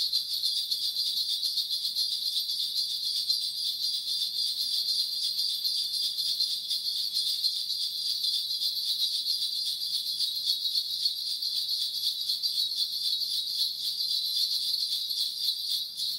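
A cluster of small shaman's bells shaken continuously in a fast, even jingle that cuts off abruptly at the very end.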